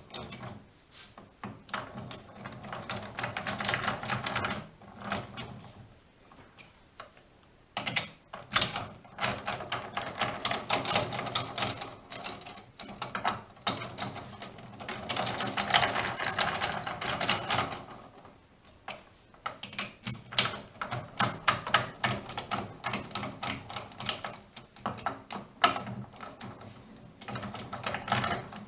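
Four-jaw lathe chuck being worked by hand: quick runs of metallic clicking and rattling in several bursts with short pauses, as the jaws are screwed out and turned around.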